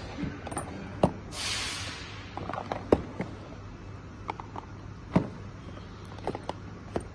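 An automatic box labeling machine running with a low steady hum, and a series of sharp clicks and knocks from cardboard boxes being handled and bumping together on its conveyor. A brief hiss comes about a second and a half in.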